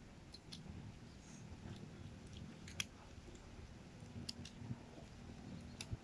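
Small plastic Rubik's cube being turned in a child's hands: faint, scattered clicks, the sharpest about three seconds in, over a faint low hum.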